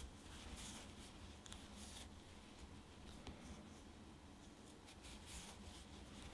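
Faint scratchy rustling of chunky yarn against a wooden crochet hook as stitches are worked and pulled through.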